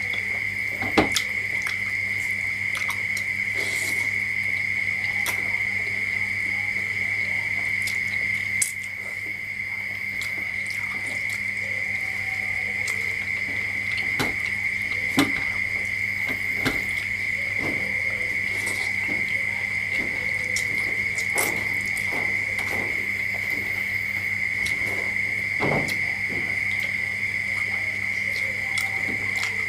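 Eating sounds: scattered short clicks and smacks of chewing and of fingers picking food from a metal tray, over a steady high-pitched whine and a low hum.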